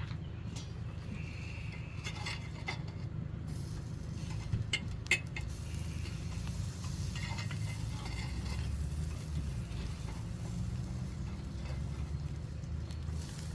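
A few sharp metal clinks and scrapes of utensils on cookware while food is cooked, over a steady low hum.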